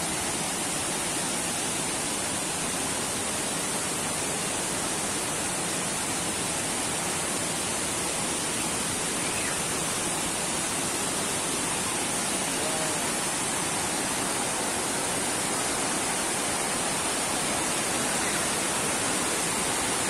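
Steady rush of a waterfall and white-water river rapids running over rocks.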